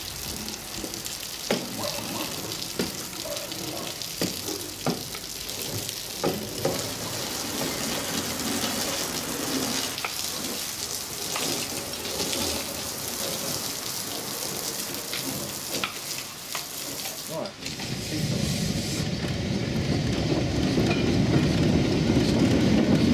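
Water from a garden hose spraying against the side of a narrow-gauge railway carriage: a steady hiss with scattered clicks and knocks. About three-quarters of the way through, the sound cuts to a narrow-gauge locomotive moving along the track, a low rumble that grows louder.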